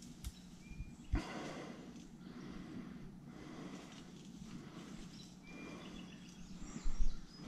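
Footsteps through brush and leaf litter on a slope, about one step a second, with a couple of loud low thumps near the end.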